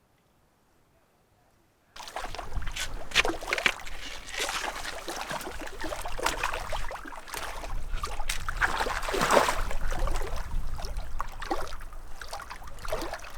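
Near silence, then about two seconds in, water splashing and sloshing starts suddenly, in irregular strokes, over a low rumble.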